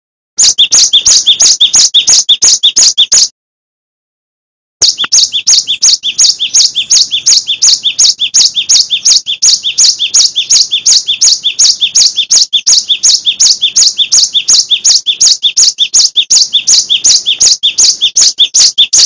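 Cinereous tit (gelatik batu) calling in a fast, even series of sharp, high two-part notes, about four a second. The series breaks off about three seconds in, stays silent for a second and a half, then runs on unbroken.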